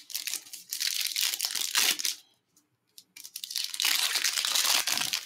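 Foil trading card pack wrapper being torn open and crinkled by hand, in two spells of crinkling with a short pause between them about two seconds in.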